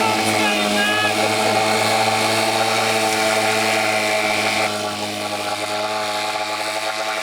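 Small Johnson Seahorse two-stroke outboard motor running steadily at a constant speed, with an even buzzing note; it drops a little in level about two-thirds of the way through.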